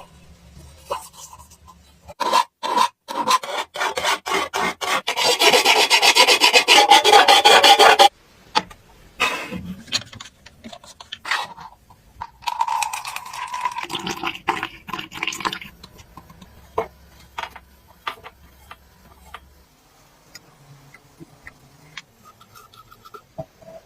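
Rapid rasping strokes of a hand tool scraping a workpiece, dense and loudest from about two to eight seconds in, then scattered shorter scrapes and taps.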